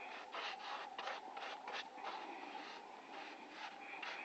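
Rhythmic rubbing strokes across a surface, about three a second, over a steady faint hum.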